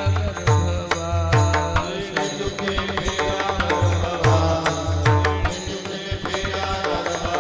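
Instrumental devotional kirtan music: a melody of short notes played over repeated low drum strokes and sharp percussive strikes, with no singing.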